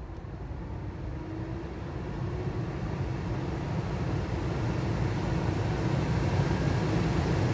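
Heater blower fan of a VW Corrado, run by a retrofitted Climatronic controller, speeding up as its fan speed is stepped up. Its steady rush of air grows louder throughout.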